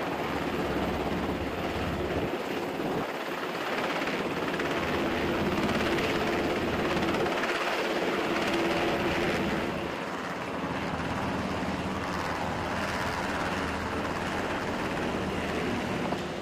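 MH-60S Sea Hawk helicopter hovering with a slung cargo net, its rotors and twin turboshaft engines running in a steady, dense noise with a low hum underneath.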